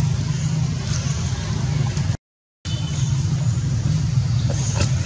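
Steady low rumbling background noise, cut off completely for about half a second a little over two seconds in, with a few faint ticks near the end.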